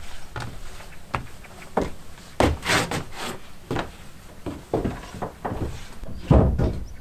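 Wooden cabin door being unlocked and opened by hand: scattered clicks and knocks, a louder rattle of the lock and handle about two and a half seconds in, and a heavy wooden thump near the end.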